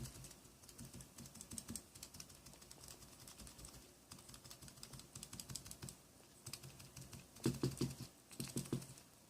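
Keys being typed on an HHKB Type-S keyboard with silenced Topre capacitive switches, a steady run of soft keystroke clicks that gets faster and louder near the end. The typing shows off the switches' spring noise, a known fault of this board.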